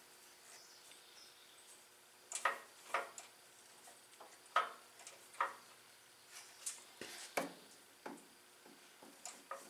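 Kohler flathead engine turned over slowly by hand, giving a string of short, irregular clicks and knocks from the moving parts.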